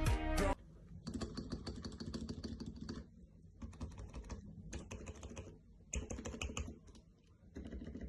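Typing on a keyboard fitted with the keycaps under review: rapid runs of key clacks in about five short bursts, with brief pauses between them.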